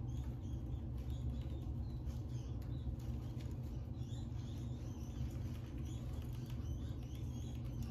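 Pet rats squeaking in short, high chirps, several a second and irregular, with small clicks from them moving in the bedding. A steady low hum runs underneath.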